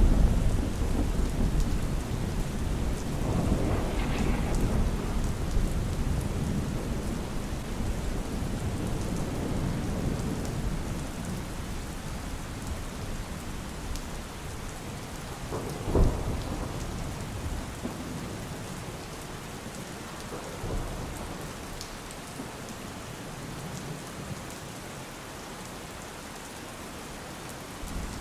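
Steady rain in a thunderstorm, with rolling thunder: a low rumble about four seconds in, and a sharp thunderclap past the middle that trails off into a rumble. The storm grows quieter over the second half.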